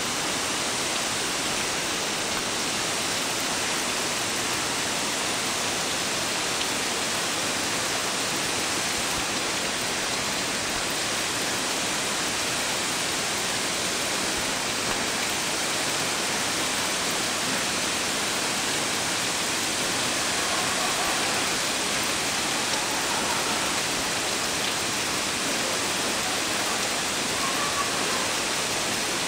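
Nachi Falls, a tall waterfall, crashing steadily into its plunge pool: a constant, even rush of falling water.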